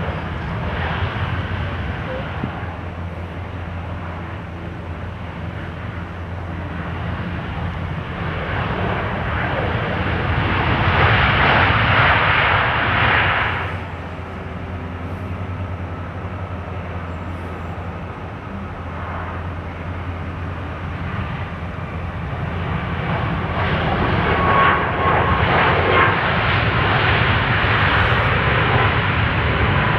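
Airliner jet engine noise over a steady low rumble. It swells and cuts off sharply about halfway through, then builds again with a faint steady whine near the end.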